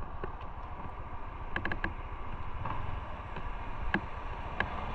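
Motorcycle on the move: engine and road noise running steadily at a fairly low level. A quick run of four sharp clicks comes about a second and a half in, and two more single clicks near the end.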